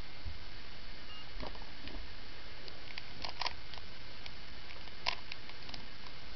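Plastic Rubik's Cube being turned by hand during a solve: light, irregular clicks and clacks of the layers twisting, over a steady background hiss.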